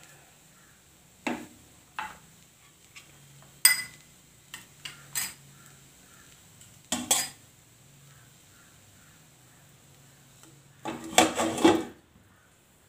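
Scattered clinks and knocks of cookware, then near the end a loud burst of metallic clatter and ringing as a stainless steel lid is set down on a nonstick kadai to cover it.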